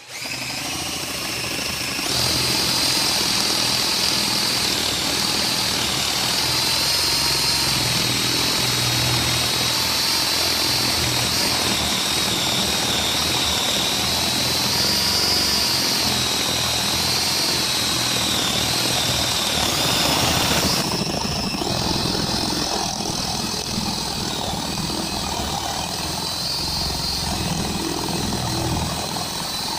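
DeWalt DCD776 18 V cordless drill in second gear, boring a 22 mm paddle bit into a thick block of wood: the motor whines steadily under load, its pitch wavering. About two-thirds of the way through, the high whine drops away and the sound changes.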